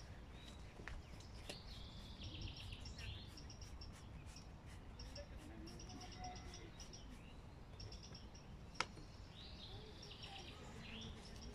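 Songbirds singing faintly: repeated high trilling phrases and short chirps over a low outdoor rumble, with a single sharp click about nine seconds in.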